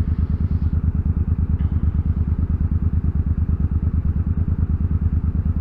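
Cruiser motorcycle engine running steadily while riding, its exhaust pulsing evenly with no change in revs.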